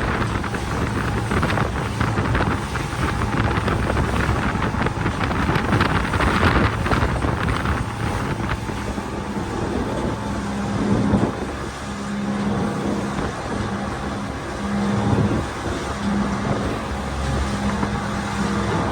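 A fishing boat's engine running at cruising speed, with wind buffeting the microphone. A low engine hum comes and goes in the second half.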